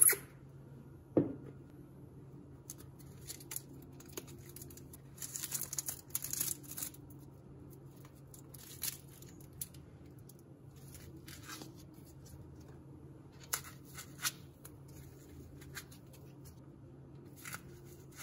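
Plastic protective film and tape being peeled and pulled off a resin figure and its display base, crinkling and rustling in short spells with a longer stretch about five seconds in. A few sharp taps come through now and then as the pieces are handled.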